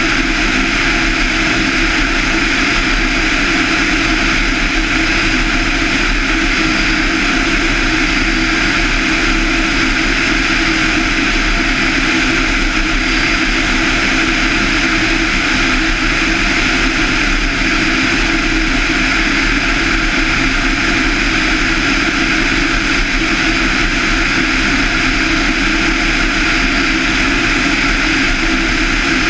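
Van's RV-7's 200 hp Lycoming IO-360-A1A, a fuel-injected flat-four, and its propeller running at a steady cruise setting in flight. The result is a loud, even drone with no change in pitch.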